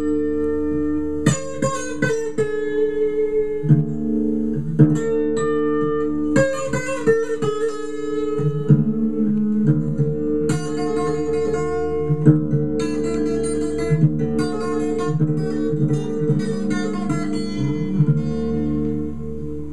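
Solo acoustic blues guitar, a run of plucked notes over steady sustained bass notes, played from a mono vinyl LP on a Garrard 301 idler-drive turntable.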